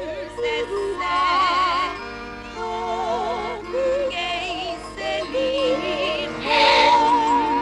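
Background score music: a slow melody of long, wavering held notes with strong vibrato over a soft sustained accompaniment.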